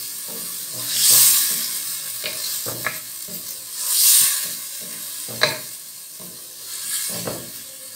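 Boiled kidney beans and tomato-onion masala sizzling in a pot as a wooden spatula stirs them through, frying them in the spices. The sizzle swells about every three seconds with the stirring strokes, with a few light knocks along the way.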